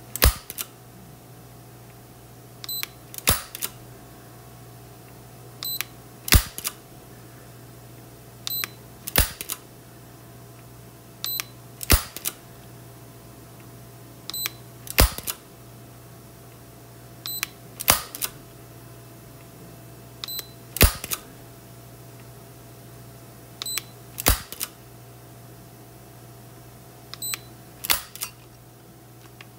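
Taurus 856 .38 Special revolver dry-fired in double action against a digital trigger pull gauge. About every three seconds the hammer snaps down with a sharp metallic click, ten times in all, each click coming about half a second after a faint short high beep, over a steady low hum.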